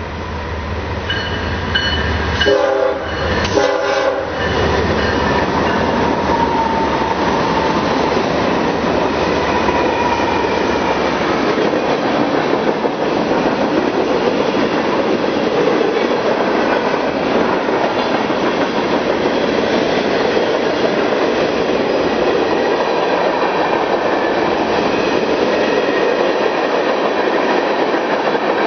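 Norfolk Southern mixed freight train passing close at speed. The lead diesel locomotive's horn sounds a chord, loudest in two short blasts a few seconds in. The locomotives' low engine rumble fades after about ten seconds, leaving the steady clatter and rumble of freight cars rolling by on the rails.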